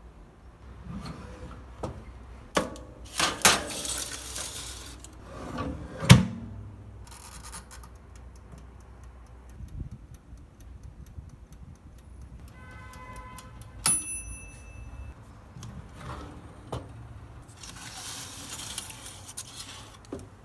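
Kitchen handling sounds: clicks, knocks and scraping or rubbing of utensils and dishes in two spells. About 14 seconds in, a single bright metallic ding rings and fades over about a second.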